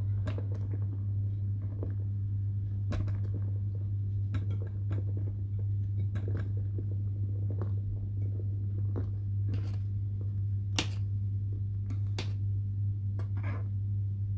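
Metal spoon clicking against a stainless steel saucepan at irregular intervals, about a dozen times, as marshmallows are added to the simmering liquid and stirred. A steady low hum sits underneath.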